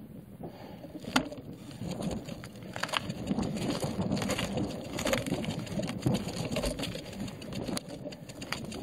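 Road bike rolling very slowly over a rough gravel and stone track: tyres crunching on loose stones, with irregular clicks and rattles, one sharper click about a second in.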